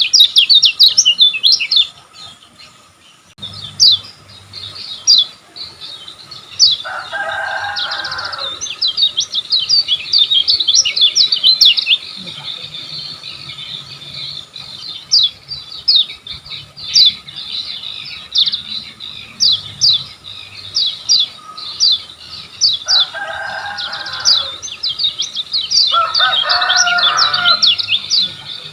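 Kecial kuning (a yellow white-eye) singing in fast runs of high, quick-falling chirps, with a short pause about two seconds in. Three times, about a quarter and near the end, a lower, harsher call sounds briefly under the song.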